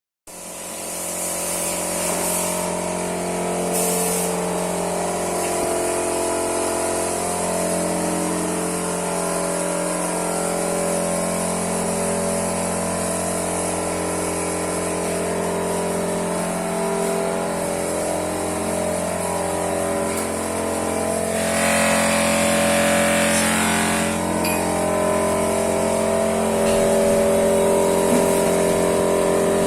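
Vacuum pump of a Hualian vacuum sealer running steadily, with a burst of hissing air for about two seconds, roughly three-quarters of the way through.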